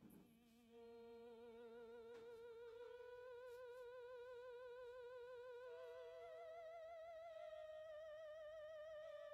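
Faint music: long held notes with a steady, wavering vibrato, the pitch stepping up a little about a second in and again near the end.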